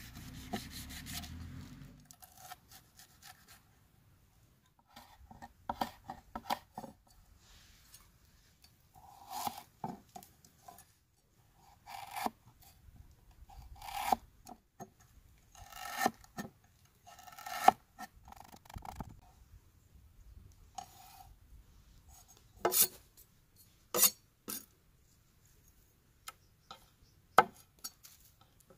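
Cleaver working ginger on a wooden cutting board: short scraping strokes of the blade about every two seconds, then a few sharp knocks of the blade on the board near the end.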